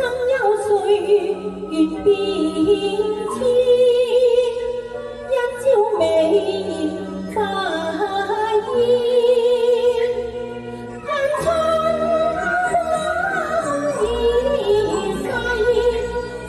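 Cantonese opera singing: a voice sings long, wavering phrases over a steady instrumental accompaniment.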